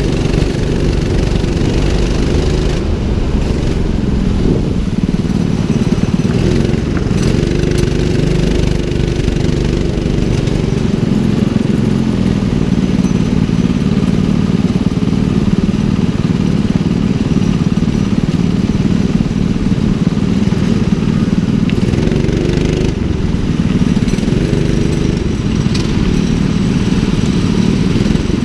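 A 200cc rental go-kart engine running under the driver, its note rising and falling with the throttle as the kart laps the track and then rolls into the pit lane among other karts.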